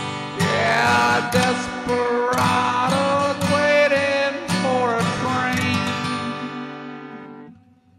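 Acoustic guitar strumming and picking the closing bars of a country song, with a wavering held melody line over the chords; the last chord rings out and fades near the end.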